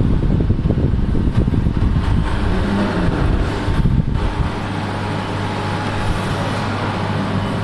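Machinery running: a rough low rumble over the first few seconds, settling after about four and a half seconds into an even low hum with a faint higher tone above it.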